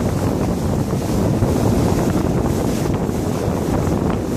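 Steady, loud wind buffeting the microphone of a boat under way, with rushing water from the hull beneath it.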